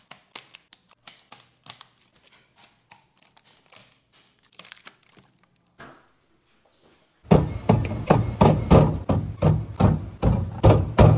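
Faint snips, taps and clicks of scissors cutting the plastic packaging on drink packs. After a brief pause, a much louder, rapid run of knocks and clatters as plastic drink bottles are set down and arranged on a refrigerator shelf.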